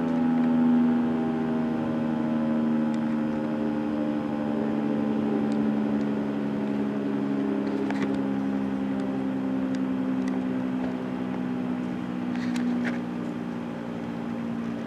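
Federal Signal 3T22 three-tone rotating outdoor warning siren sounding its steady chord during a noon test. The level eases down gradually as the horn turns.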